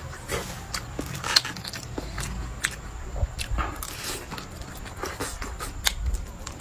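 A person biting and chewing food close to the microphone: irregular clicks and smacks of the mouth, several a second.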